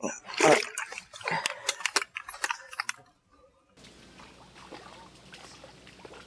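A splash, then a quick run of wet slaps and sharp clicks as a freshly caught fish flaps while being handled. Near four seconds in, the sound cuts abruptly to a faint, steady hiss.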